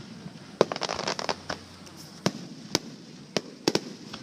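Fireworks going off: sharp bangs at irregular intervals, with a quick run of crackling pops about a second in.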